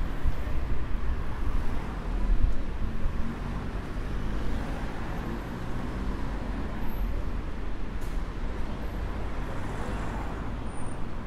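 Street traffic, with cars and buses passing, and wind rumbling on the moving microphone.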